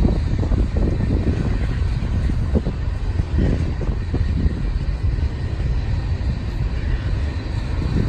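Freight train's diesel locomotives running past: a steady deep rumble, with a few faint knocks in the first half.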